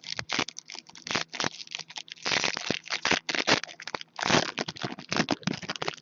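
Trading-card packs and cards being handled: a dense run of crinkling, tearing and scraping of wrappers and cards, thickest a little past the middle.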